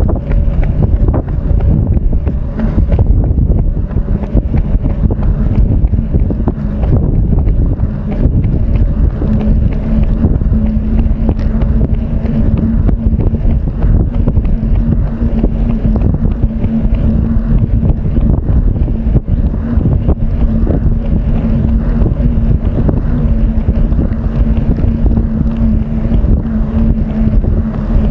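Heavy wind noise buffeting the microphone, a dense low rumble from the air rushing past during a fast run. A steady hum sits under it and grows stronger about a third of the way in.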